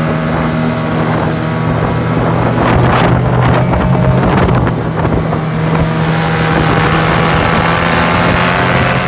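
Modified 9.8 hp outboard motor running steadily at half throttle, pushing a small aluminium dinghy at planing speed, with water rushing and spray hissing off the lower unit. Wind buffets the microphone.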